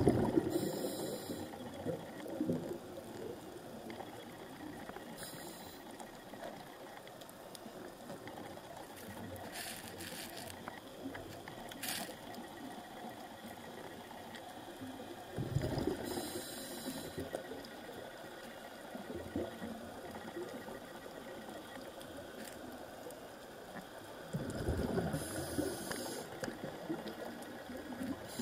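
Underwater sound picked up by a diver's camera: a steady low rush, broken by a few gurgling bursts of the scuba diver's exhaled regulator bubbles, several seconds apart. A few faint sharp clicks come in the middle.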